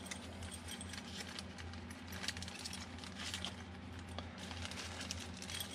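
Small wooden kit parts handled and set down on a plastic-covered work surface: faint, scattered light clicks over a steady low hum.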